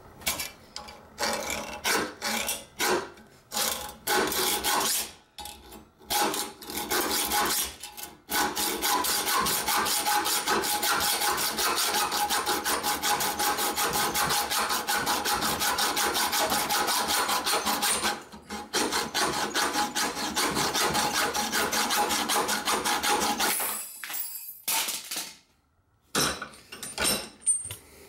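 Hand hacksaw cutting through a steel chain link held in a vise. A few short, separate strokes start the cut, then steady rapid back-and-forth sawing with one brief pause runs until a few seconds before the end, followed by a few scrapes. The link cuts easily because it is soft, not hardened steel.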